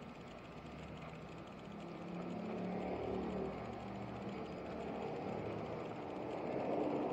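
A motor vehicle's engine running steadily over a rumble of street noise, swelling louder about three seconds in and again near the end.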